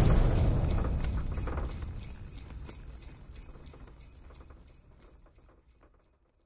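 Sleigh bells jingling in a steady rhythm with soundtrack music, fading out gradually to silence.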